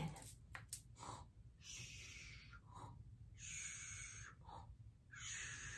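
A woman breathing slowly and softly, three long breaths about a second each, acting out sleep.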